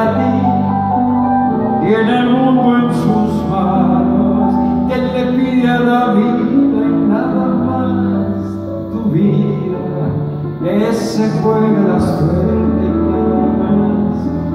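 Live band playing a slow song in a theatre, with long held chords over bass notes that change every second or two.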